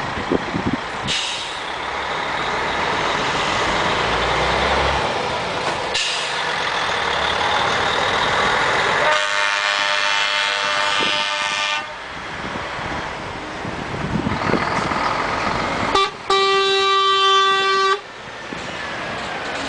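Convoy of trucks passing close by, engines running and tyres rushing on the road. A truck's air horn blows for about three seconds partway through, and again near the end with a steady single-pitched blast of about two seconds.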